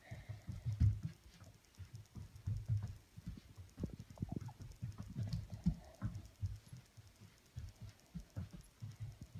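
Irregular soft thumps and taps from a person spinning round in a swivel office chair, pushing off the floor with her feet.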